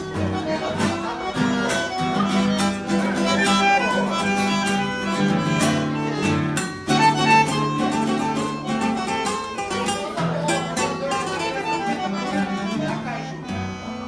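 Instrumental break between sung verses: a bowed violin melody over strummed guitars, in a mariachi-style arrangement.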